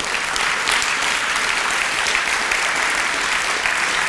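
Audience applause: many hands clapping in a dense, steady patter.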